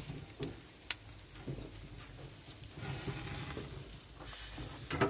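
Jerk chicken sizzling on the grate of a charcoal barbecue grill, with a few sharp clicks, the loudest near the end.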